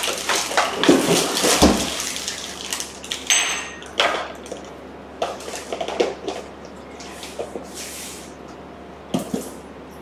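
Kitchen handling sounds: a rush of running or splashing water for about the first two seconds, then scattered light knocks and clinks of containers and utensils being moved.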